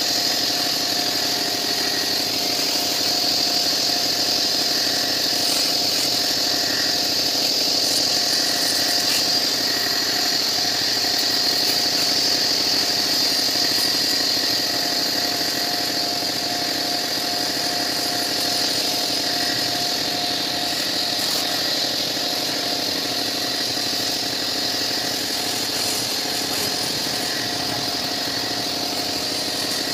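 Pressure washer running steadily, its high-pressure water jet hissing against a truck cab over the even drone of the machine.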